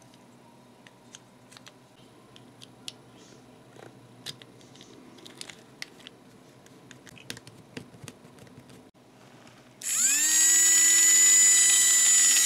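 Light clicks of small plastic parts being handled and fitted together, then about ten seconds in the toy train chassis's small battery-powered electric motor switches on. It whines up to speed within a moment and then runs steadily, with a high gear whine.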